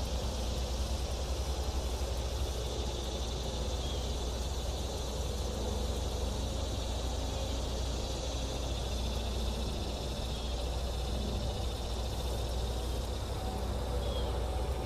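Steady outdoor background noise with a constant low rumble, a few faint high chirps and no gunshot.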